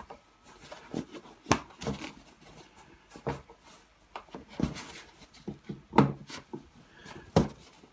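Hard plastic parts of a Bugaboo Fox carrycot being handled and fitted onto the fabric bag: several separate sharp clicks and knocks, the loudest about six seconds in.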